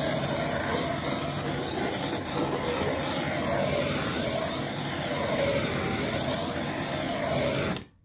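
Handheld gas torch flame running steadily as it is swept over freshly poured epoxy resin to pop the air bubbles. It cuts off suddenly near the end.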